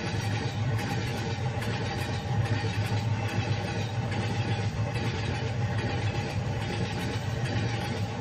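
Steady low rumble of a train running, heard from inside the carriage, with a faint constant tone over it and no distinct wheel clicks.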